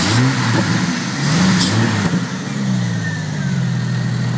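1994 Jeep Grand Cherokee's inline six-cylinder engine, running through a glasspack exhaust with no catalytic converter, revved briefly twice, then settling to a steady idle about two seconds in.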